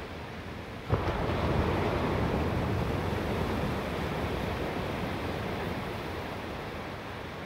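Thunder: a sharp crack about a second in, then a low rumble that slowly fades over several seconds, over a steady background hiss.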